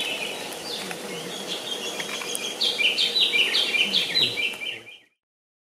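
Birdsong over a faint background hiss: a songbird repeating short, falling notes, coming faster in a quick series over the last couple of seconds, then cut off abruptly about five seconds in.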